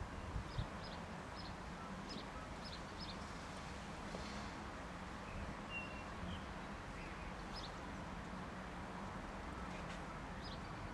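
Steady outdoor background noise with short, high bird chirps scattered throughout, and one faint low thump about half a second in.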